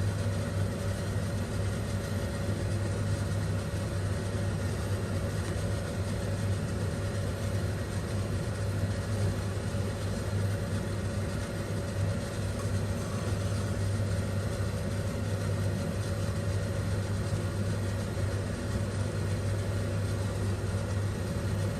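Steady low mechanical hum, even throughout, with a faint steady higher tone above it.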